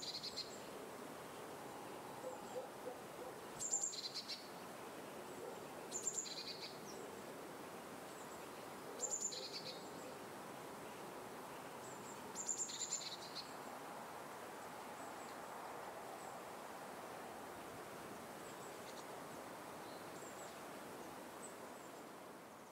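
A bird repeating a short, high two-note call every few seconds over a faint, steady outdoor hiss. The calls thin out after the middle, and the sound fades out at the very end.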